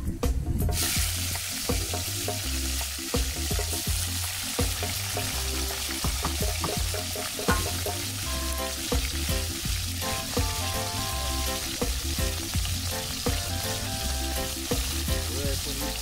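Fish frying in hot oil in a pot: a steady, dense sizzle that starts within the first second. Bass-heavy music plays underneath.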